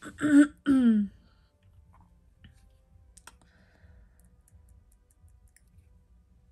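A brief spoken or vocal sound at the start, then quiet handling: a few faint clicks and light ticks as tweezers and sticker pieces are picked up and set down on the table.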